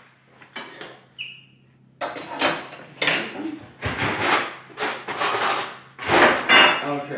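Metal spoon scraping and knocking against a pan and plate while the carbonara cream is scooped out, a run of scrapes and clinks starting about two seconds in, over a low steady hum.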